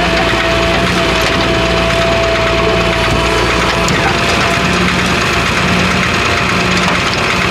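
JCB 3DX backhoe loader's diesel engine running under load as the backhoe arm swings a loaded bucket, with a steady high whine over the engine hum and a few light clicks.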